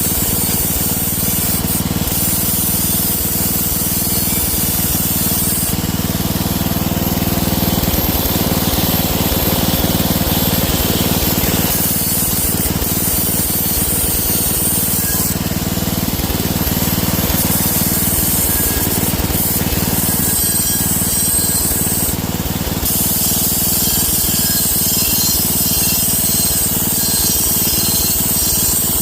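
Angle grinder running steadily while grinding against a wheel rim to resurface it, a continuous loud grinding hiss over the motor's hum, its tone shifting slightly as the pressure changes.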